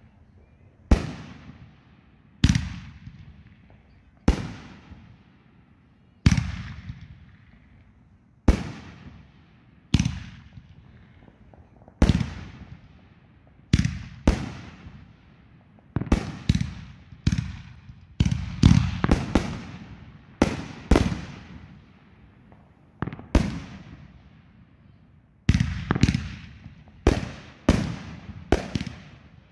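Aerial fireworks bursting overhead: sharp booms, each trailing off over about a second, spaced a second or two apart at first and coming in quicker clusters in the second half.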